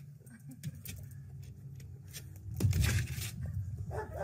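Handling noise as a handler holds a muzzled dog by its harness: rustling and light clicks over a low rumble, with a loud rush of noise about three seconds in.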